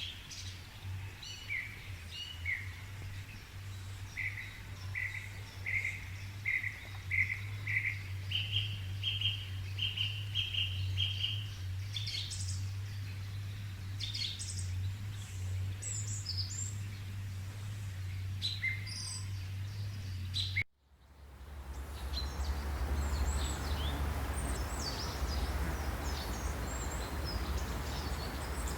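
Forest birds singing: a run of repeated short notes, then a quicker, slightly higher series, with scattered high chirps, over a steady low hum. About two-thirds of the way through, the sound cuts out for a moment and comes back with a louder hissing background.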